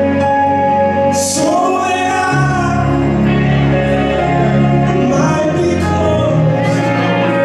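Gospel song with a singing voice over sustained chords and a bass line; a held sung note swells about a second in and again near the end.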